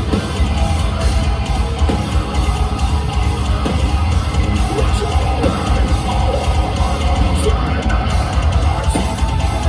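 Metalcore band playing live: loud electric guitars, bass and drums filling the hall, heard from within the crowd.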